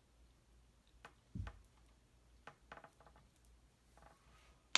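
A fidget toy being handled: scattered faint clicks and taps, a soft thump about a second and a half in, and a sharp click at the very end.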